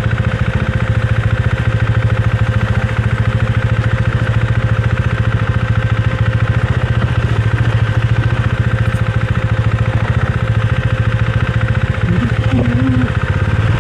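Husqvarna Svartpilen 401's single-cylinder engine running at a steady, even engine speed, its rapid firing pulses unbroken and without revving.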